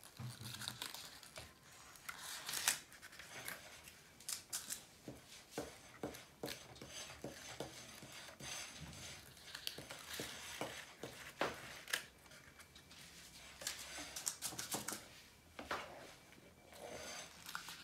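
Irregular small clicks and scrapes of a spoon stirring batter against a stainless steel mixing bowl, mixed with the rustle of paper cupcake liners being pulled apart and set into a muffin tin.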